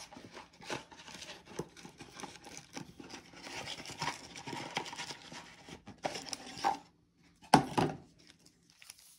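Trading-card pack wrapper crinkling and tearing as it is opened, with cards rustling as they are handled; irregular rustles, with two sharper, louder crinkles about seven and a half seconds in.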